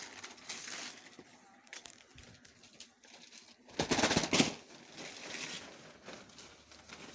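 Plastic packaging crinkling and cotton suit fabric rustling as a folded piece is taken out and unfolded, with a louder burst of rustling about four seconds in.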